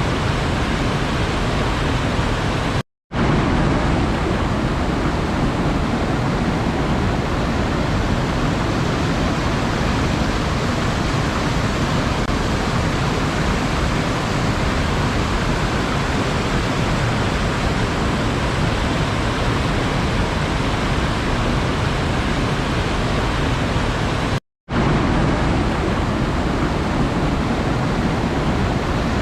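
Steady, even rushing of water, with no separate wave surges standing out. It cuts out completely for a split second twice: about three seconds in, and again about five seconds before the end.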